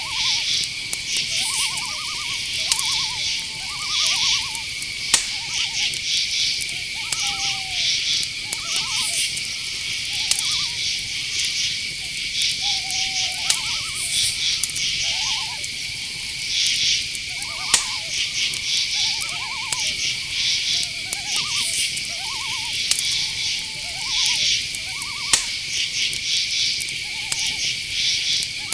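Night-time insect chorus: a steady high cricket trill with rhythmic pulsed buzzing above it. Underneath it run many short, repeated lower calls, and a few sharp clicks are heard along the way.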